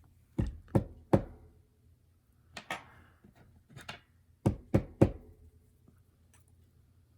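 Sharp knocks on an Abus euro-profile lock cylinder, struck to jar its passive side pins loose: three quick knocks, a couple of softer ones, then three more quick knocks.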